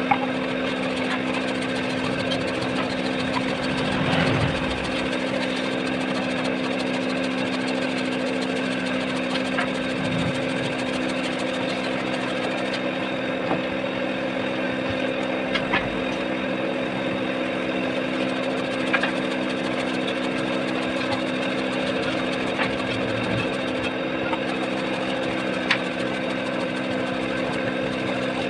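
Handheld electric carving tool running steadily as it hollows the bowl of a wooden spoon: an even motor hum, with a few light ticks now and then.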